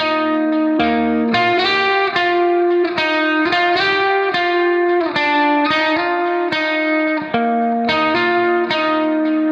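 Background music: an electric guitar picking a steady run of notes, several a second.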